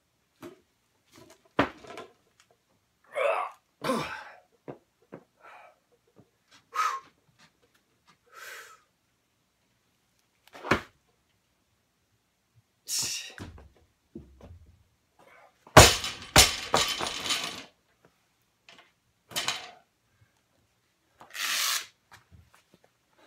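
Forceful breaths and exhales between small knocks and clicks. About sixteen seconds in comes a loud crash with a rattle that dies away over a second or two: a loaded barbell dropped to the floor after a clean and jerk.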